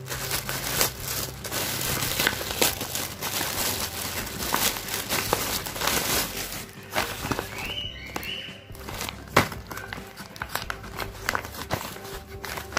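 Plastic courier polybag and brown paper wrapping crinkling and rustling in irregular bursts as hands open a parcel.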